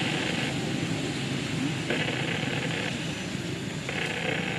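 A steady low engine-like rumble, with a higher hissing buzz that switches on and off three times, each lasting about a second.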